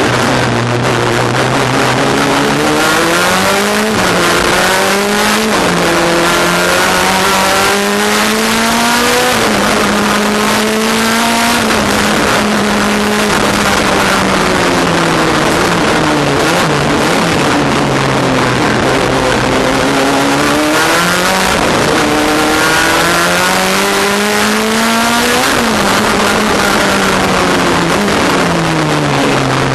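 Race car engine heard from inside the cockpit, pulling hard through the gears. Its pitch climbs and drops sharply at each upshift, winds down for a stretch in the middle, then climbs again, under heavy wind and road noise.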